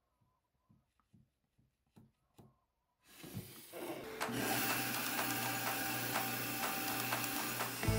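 A few faint taps, then a bandsaw is switched on about three seconds in, spinning up over a second and running steadily with a low hum and the hiss of the moving blade.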